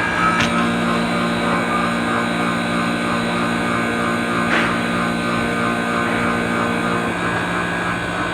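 Manitowoc ice machine running, its compressor and fan giving a steady mechanical hum. Two brief sharp ticks come through, one near the start and one about halfway. One of the low hum tones drops out about seven seconds in.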